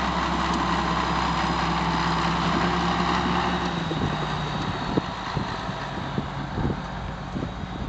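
Heavy diesel earthmoving engines idling steadily; about four seconds in the deepest engine drone stops, leaving a fainter engine tone and scattered irregular knocks.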